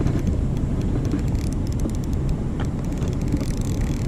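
A boat's motor running steadily, a low rumble with a few faint ticks over it.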